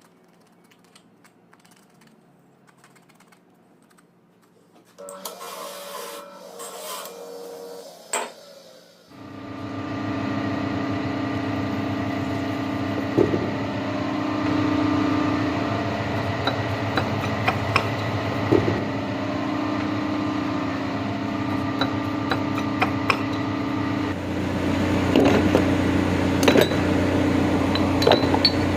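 A few handling clatters and a sharp click, then about nine seconds in an electric motor starts and runs steadily, with scattered clicks over it.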